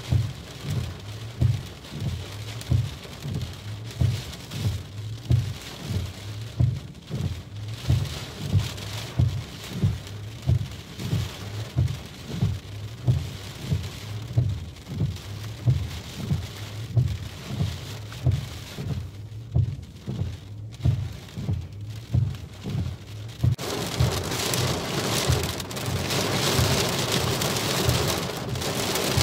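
Rain hitting a car's windscreen and roof, heard from inside the car, swelling into a heavy downpour about three-quarters of the way through. Under it, a regular low thump repeats about every 0.7 seconds.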